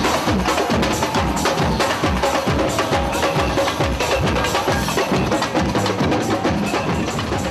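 Samba percussion music: a fast, steady beat of drum strokes and sharp wood-block-like hits, over repeated deep bass-drum thumps.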